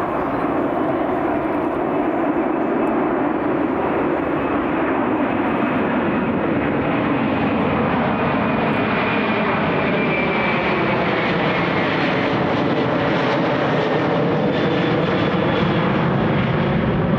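Airliner engines running loud and steady as the aircraft passes, with a faint high whine that dips slightly a little past the middle.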